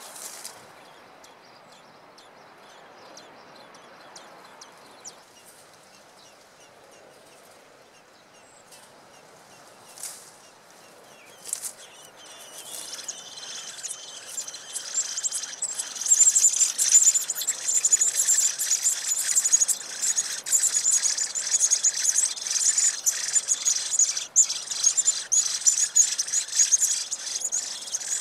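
Common blackbird nestlings begging for food: a high-pitched, rapid chorus of thin cheeps that starts faint about twelve seconds in and is loud and continuous from about sixteen seconds on.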